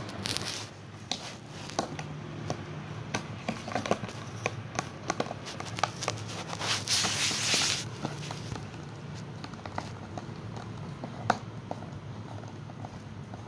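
A puppy gnawing on a clear plastic container: irregular clicks and scrapes of teeth on plastic, with a longer, denser scraping about six and a half seconds in and a sharper click near the end.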